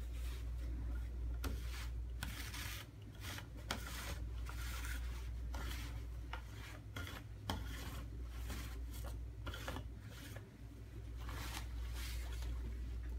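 Surgical gown fabric rustling and swishing as it is handled and folded, in irregular strokes with a few sharp light ticks, over a steady low hum.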